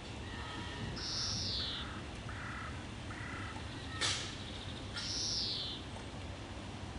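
Birds calling: two long calls that fall in pitch and several shorter, lower notes between them, with one sharp click about four seconds in.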